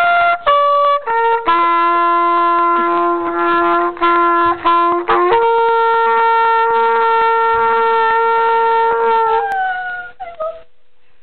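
A brass instrument playing a slow tune of a few notes, two of them held for several seconds each; the last note sags in pitch and stops about ten seconds in.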